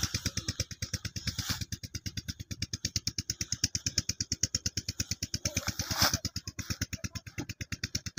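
Single-cylinder Peter diesel engine running the field's irrigation pump, a steady chugging at about eight beats a second. Cut green fodder rustles as it is gathered and loaded, briefly about a second and a half in and more loudly about six seconds in.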